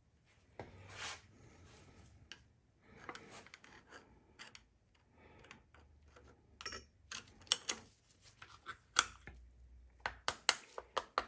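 Hand tools working on metal on a Chevy 350 V8's connecting rods: scattered clinks and scrapes, then near the end a quick run of sharp metallic clicks, about four a second.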